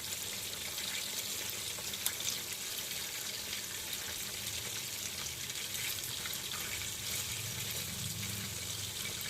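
Chicken wings deep-frying in hot oil: a steady sizzling hiss with fine crackle and spatter throughout, and a small click or two about two seconds in.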